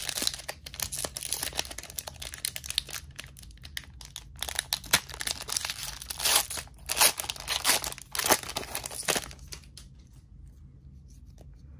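A foil trading-card booster pack crinkling and tearing as it is ripped open by hand, with many sharp rips and rustles. The crinkling stops about nine seconds in.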